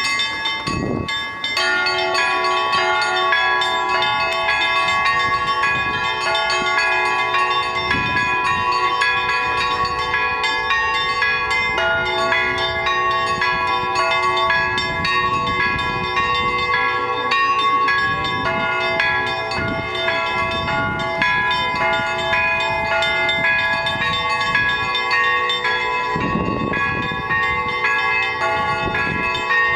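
Russian Orthodox church bells of the Donskoy Monastery rung together by one bell ringer: several bells of different pitch struck in a quick, continuous, overlapping pattern, each ringing on.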